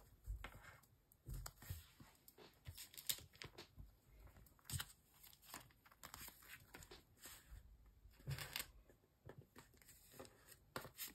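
Faint handling noises of photocards being shuffled in the hands and slid into a plastic binder sleeve page: a scatter of small clicks and plastic rustles.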